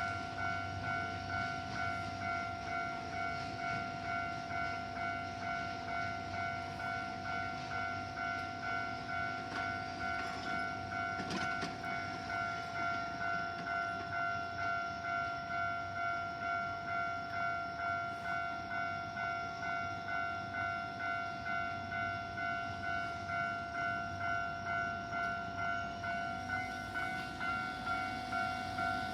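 Japanese level-crossing warning bell ringing: a two-tone electronic ding-ding repeating at a steady, even rhythm, with a low rumble beneath.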